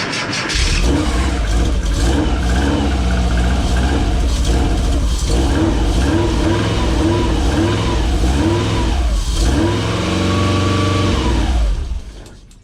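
Subaru flat-four boxer engine in a VW T3 Kombi running and being revved, its pitch rising and falling in a string of quick blips and then one longer rev. The engine is switched off near the end and cuts out.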